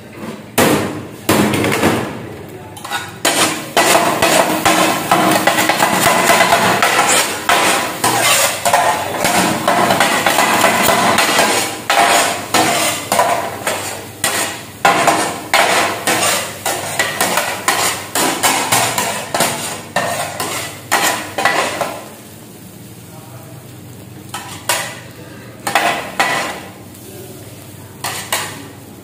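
Two flat metal kottu blades chopping rapidly on a steel griddle, a fast clattering run of metal strikes as chicken kottu roti is chopped and mixed. After about 22 seconds it thins to a few scattered clanks.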